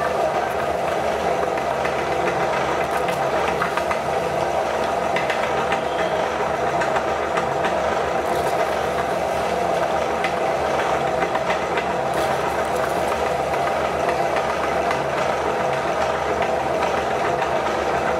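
Meat grinder running steadily with a light rattle from its turning auger while it grinds chocolate wafers into strands.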